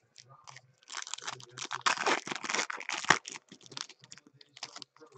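Foil wrapper of a baseball card pack crinkling and tearing as it is ripped open by hand. The crinkling is densest between about one and three seconds in, then thins to scattered crackles.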